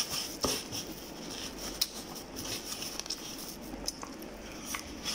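A person eating rice and stew with his hands: chewing and mouth sounds, with a few short sharp clicks and scrapes of fingers and food against the plate scattered through.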